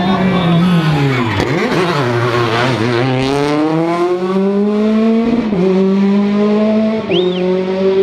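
Rally car engine revs falling as the car slows into the bend, then accelerating hard away through the gears, with two upshifts in the second half.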